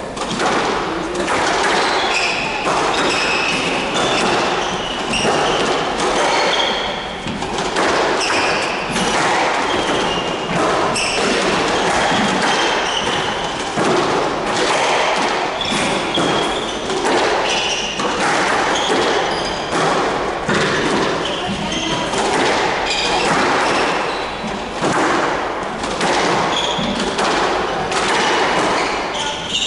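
Squash rally: the ball is struck by rackets and thuds off the court walls again and again, with shoes squeaking on the wooden floor.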